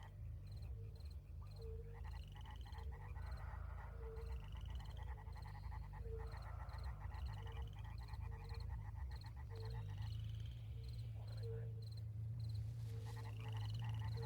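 A chorus of frogs croaking: a short low call repeats about once a second, with higher trilling and a few rising chirps over it and a steady low hum underneath.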